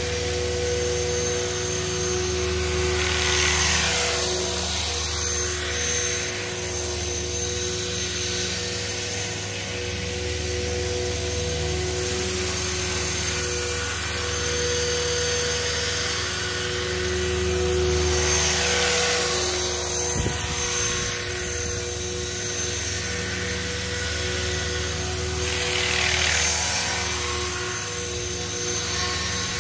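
Align T-Rex 500 RC helicopter flying: a steady whine from its electric motor and drive over the hum of the rotor blades. It swells louder three times, about four seconds in, around the middle, and near the end.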